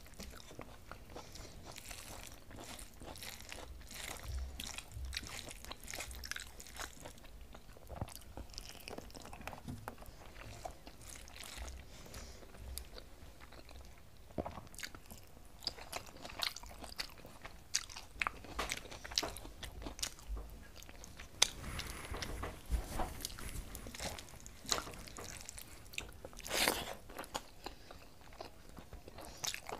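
Eating sounds of a person eating rice and fried vegetables by hand: chewing and crunching, with fingers mixing rice on a steel plate, in short irregular clicks and crackles. One louder noise comes near the end.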